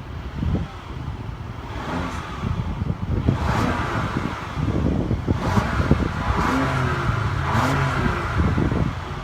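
2017 Audi A4's 2.0-litre turbocharged four-cylinder TFSI engine running, with several short rises in engine sound from about two seconds in that fit rev blips.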